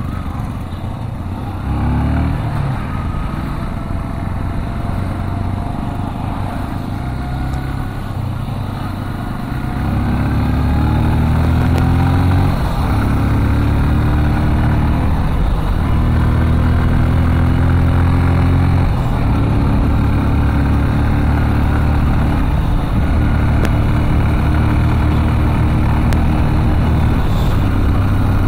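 Motor vehicle engine running on a winding hill road, its pitch holding and then shifting as speed and gears change. It grows louder from about ten seconds in.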